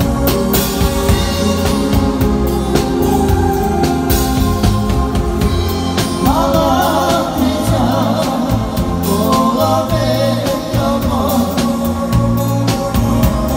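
Live band music with a drum kit keeping the beat over a strong bass line. A man's amplified singing voice comes in about six seconds in.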